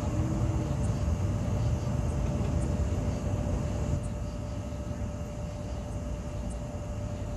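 Steady low rumble with a constant faint hum running through it, and a few faint high ticks.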